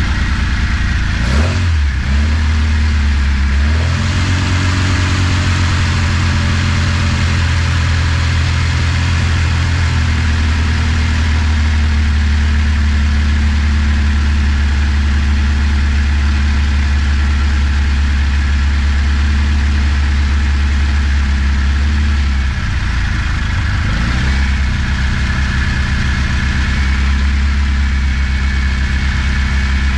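Freshly built 1330 A-series engine in a classic Mini running on its first start, holding a steady fast idle. Near the start and again about two-thirds through, the revs dip briefly and pick back up.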